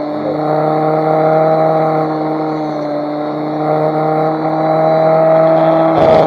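Handheld electric power tool running steadily while it grinds oxidation off an aluminum razor, its motor hum wavering slightly under load. A short, sharp noise near the end is the loudest moment.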